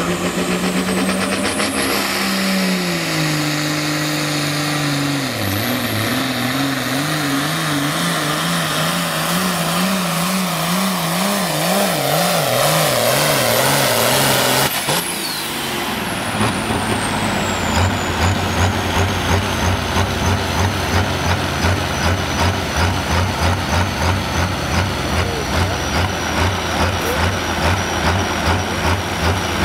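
Oliver 2150 pro farm pulling tractor's diesel engine at full throttle, its pitch rising and then wavering quickly up and down during the pull. About halfway through the throttle is cut: a high whine falls away and the engine drops to a lumpy idle, pulsing two or three times a second.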